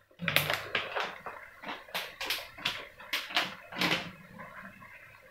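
Plastic packet of black raisins handled and shaken over the cooking pot: a quick, uneven run of about ten sharp crinkles and taps, stopping about four seconds in.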